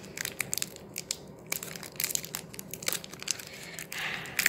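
Foil wrapper of a Pokémon trading-card booster pack crinkling and crackling as fingers squeeze and pull at it, trying to tear it open.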